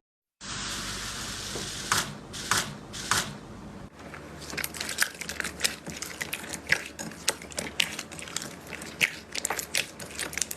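Slime being pressed and squeezed by hand, giving crunchy crackles and sticky pops: a few separate crackles over a steady hiss, then, after a cut, a quick run of many small clicks and pops.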